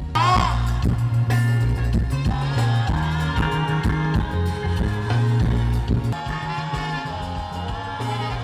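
Band music at a stage sound check, with a strong bass line under pitched instruments and a gliding pitched note near the start.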